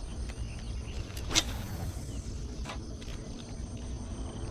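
Wind rumbling on the microphone in open country, with one brief sharp swish about a second and a half in and a fainter click near the middle; a few faint bird chirps.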